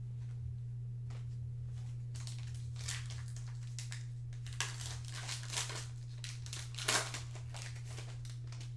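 Foil trading-card pack wrapper being torn open and crinkled, with irregular crackling that is loudest near the end, over a steady low hum.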